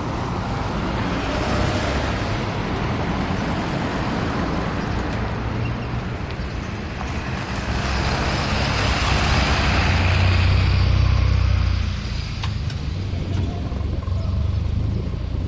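Road and engine noise of a moving vehicle heard from on board, a steady rumble with traffic around it. It swells louder, with a deeper rumble, from about eight to twelve seconds in.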